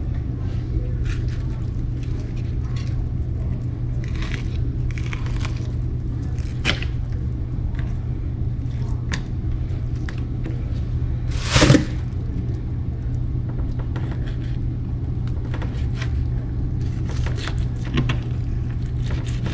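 A steady low rumble runs under scattered light clicks and scrapes, with one louder, sharper knock or scrape about twelve seconds in.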